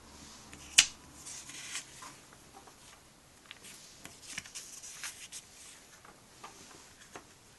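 Pages of a comic book being turned by hand: paper rustling and flapping, with small clicks and a sharp tap about a second in, the loudest sound.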